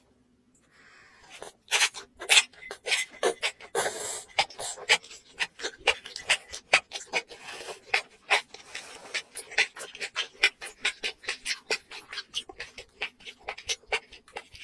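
Close-miked chewing of sauce-coated enoki mushrooms: a fast run of wet, crisp mouth clicks, about four a second, starting about a second and a half in.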